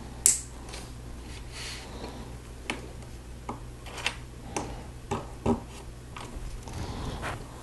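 LEGO plastic pieces clicking and clattering as they are handled and pressed onto a model: one sharp click about a quarter second in, then scattered softer clicks, thickest in the middle.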